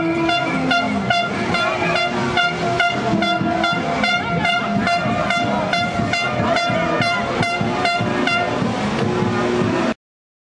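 Carnival street band in a crowd: drums beating a fast, steady rhythm of about three beats a second under a held horn note and shorter lower notes. After about eight seconds the beat drops out, leaving only crowd noise, and the sound then cuts out completely near the end.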